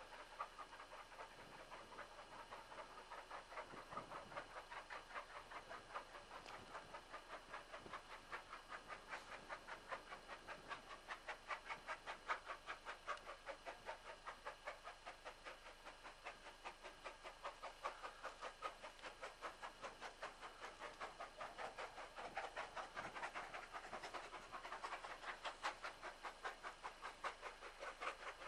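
Steam locomotive working hard, its exhaust chuffing in a fast, even rhythm as it approaches.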